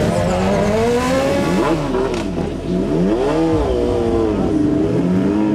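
Motorcycle engine being revved repeatedly on the throttle, its pitch swelling up and falling back several times. This is typical of the supercharged Kawasaki H2 inline-four used in these sprint bikes.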